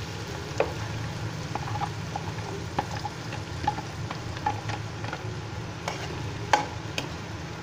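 Spiced mashed-potato filling frying in a little hot oil in a kadhai, with a steady sizzle, as a spatula stirs it, scraping and tapping against the pan. One louder clink near the end.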